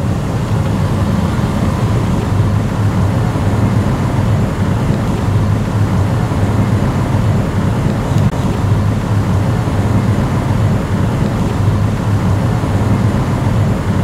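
A car's engine and tyres heard from inside the cabin while driving, a steady low rumble.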